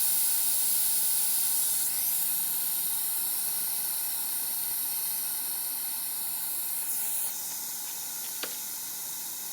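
Steady high hiss of rushing air, slowly fading, with a single click about eight and a half seconds in.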